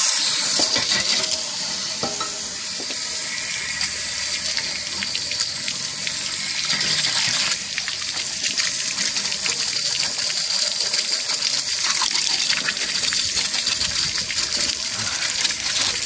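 Water from a tank rinser wand spraying inside a Suburban RV water heater tank and gushing back out of the drain port in a steady rush, flushing out scale loosened by a vinegar descaling.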